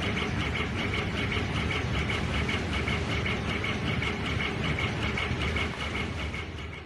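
Dual-head laser engraving machine running: the two heads scan back and forth, giving a rapid rhythmic whirring several times a second over a steady low hum of fans.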